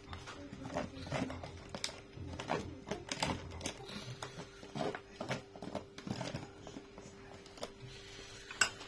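A clear plastic bag of grated cheese crinkling as a metal spoon scoops cheese out of it and clicks against a small ceramic bowl of beaten egg, in irregular small rustles and taps with one sharper click near the end. A faint steady hum runs underneath.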